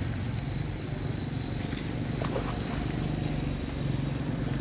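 A steady low engine hum, with a few faint clicks over it.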